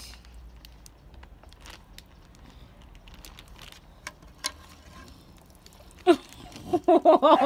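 Faint small clicks and rustles of hands handling a water-filled plastic zip bag with pencils stuck through it, then near the end a dog barks: once about six seconds in, then several quick barks in a row.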